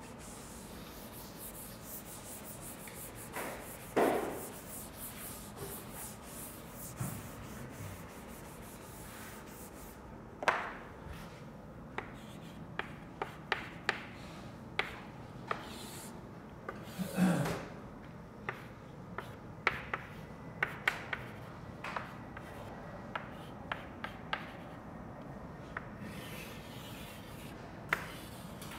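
A chalkboard eraser scrubbing across a blackboard, a steady scratchy hiss for the first ten seconds or so, followed by chalk writing and drawing on the board: short taps and scraping strokes, with a louder knock about four seconds in and another past the middle.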